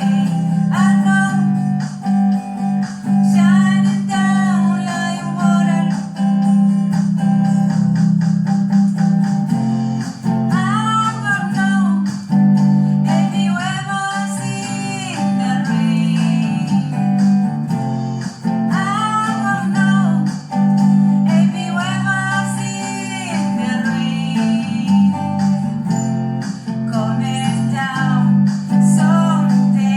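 A voice singing a song over a strummed guitar.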